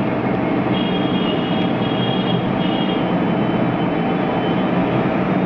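Steady background noise: a low hum under a constant rush, with faint high whining tones that come and go over the first few seconds.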